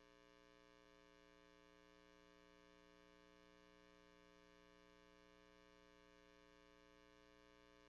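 Near silence: only a faint, steady electrical hum that does not change.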